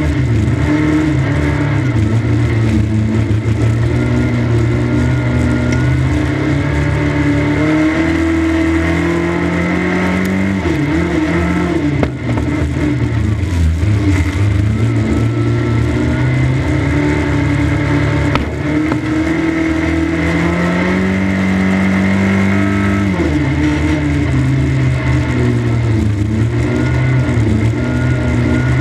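1300cc stock car engine under racing load, heard from inside the cockpit. It holds a high, steady note down the straights, and its pitch falls and climbs again twice, about ten seconds in and about twenty-three seconds in.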